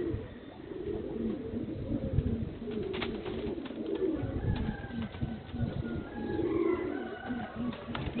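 Domestic pigeons cooing, a repeated low warbling coo that goes on throughout.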